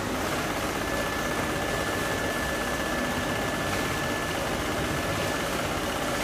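Mattress zipper sewing machine running as it stitches along the edge of a quilted mattress: a steady mechanical hum, joined about half a second in by a thin, steady high whine.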